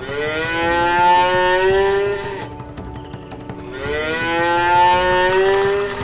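A cow mooing twice: two long drawn-out calls, each rising in pitch at the start and then held, with a short gap between them.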